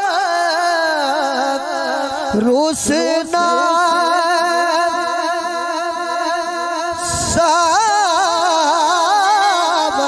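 A man sings a Saraiki/Punjabi naat into a microphone in long, held notes with a wavering vibrato. Two short rushes of noise break in, about two and a half and seven seconds in.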